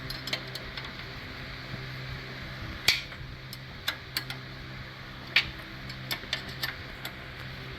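Metal clinks of a 15 mm wrench on a control arm bolt as it is tightened and repositioned, two sharp clinks about two and a half seconds apart with lighter taps between. A fan hums steadily underneath.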